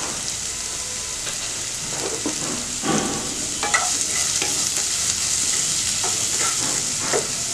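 Chopped onions and green chillies frying in oil in a nonstick pan, with a steady sizzle. A wooden spatula scrapes and stirs them in repeated, irregular strokes.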